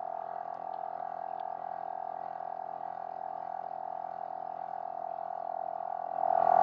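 Gobege portable air compressor running steadily as it pumps up a truck tire, a continuous buzzing hum that grows louder near the end.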